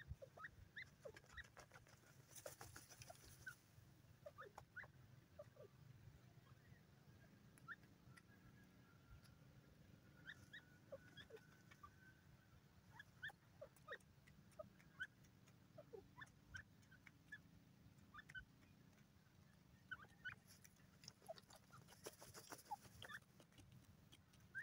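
Grey francolin foraging, giving faint, scattered short soft notes over a quiet field background.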